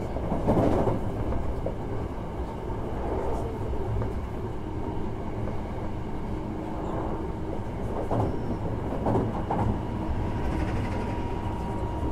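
Running sound inside a Hankyu 1000 series electric train car at speed: a steady rumble of wheels on rail with a few knocks from rail joints. In the second half, faint steady tones come from its permanent-magnet synchronous traction motor drive.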